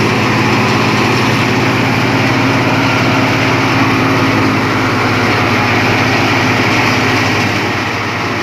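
Engine-driven wheat thresher running steadily: an engine hum under a continuous rushing noise. It begins to fade near the end.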